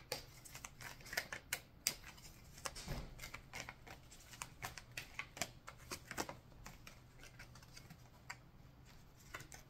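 Oracle cards shuffled by hand: a run of soft, irregular card clicks and flicks, busier for the first six seconds and thinning out after.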